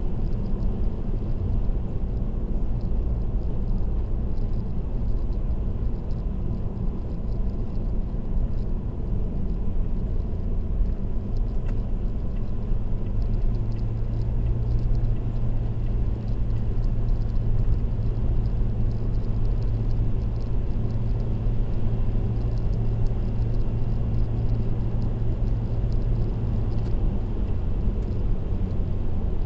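Car driving at expressway speed: a steady low road and tyre rumble. A stronger low drone joins in about halfway through and fades near the end.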